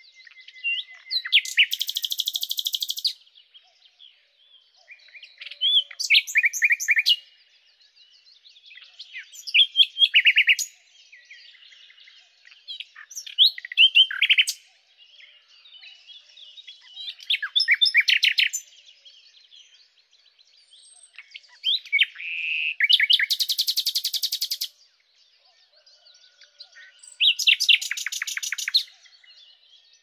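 Common nightingale singing: seven phrases of about two seconds each, separated by short pauses, each built of rapid repeated notes and rattling trills with some sliding whistled notes.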